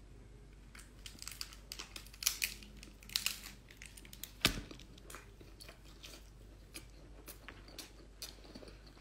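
Close-up chewing and biting of seafood meat dipped in chili sauce: a scatter of short, sharp mouth clicks and wet smacks, the loudest about four and a half seconds in, thinning out towards the end.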